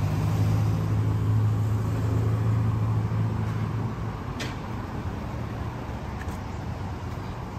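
A road vehicle's engine running nearby, a steady low hum that fades away after about four seconds, over street traffic noise.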